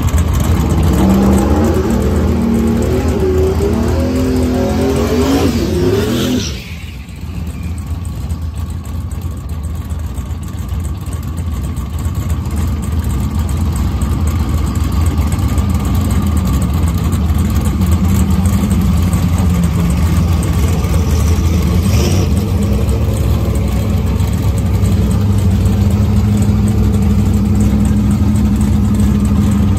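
Turbocharged LS-swapped V8 in a Chevy Colorado drag truck running at the starting line. For the first six seconds it runs louder with a wavering, slowly rising note, then drops suddenly to a steady idle that grows gradually louder.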